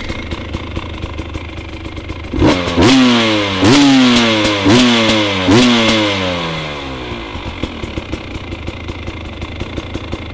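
Fuel-injected 300 TPI two-stroke dirt bike with an FMF racing pipe and Akrapovic exhaust, idling with a fast even crackle. About two seconds in it is blipped four times, each rev rising sharply and falling away, then it drops back to a steady idle.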